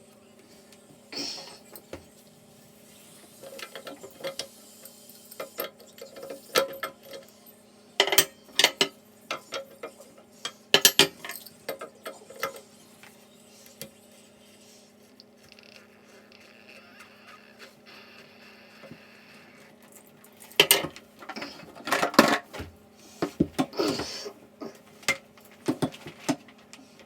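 Hard objects clinking and clattering as they are handled, in clusters of sharp knocks with quieter gaps between, over a steady low hum.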